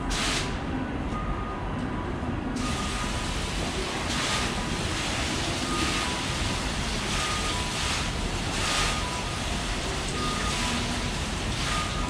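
Water from a computer-controlled 'space printer' water clock falls from its overhead nozzle bar into the basin below as a splashing hiss. It grows fuller about two and a half seconds in and swells again several times as heavier curtains of drops fall. Behind it, a two-tone electronic beep repeats, alternating high and low.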